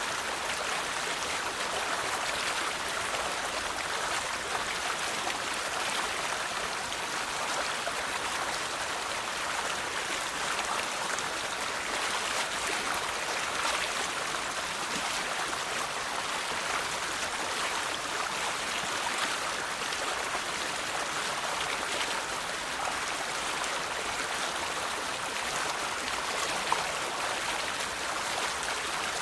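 River water flowing steadily over stones, a continuous rushing and babbling.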